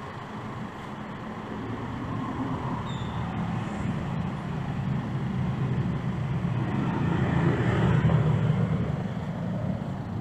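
Road traffic noise from the street, a steady low rumble that swells loudest about eight seconds in, as a passing vehicle would.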